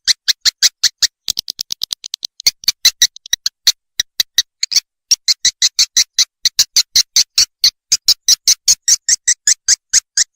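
Swiftlet lure call played back: a fast, even train of sharp chirps, about six a second, with a brief break about five seconds in. This is the outside call used on swiftlet houses to draw wild swiftlets in to roost and nest.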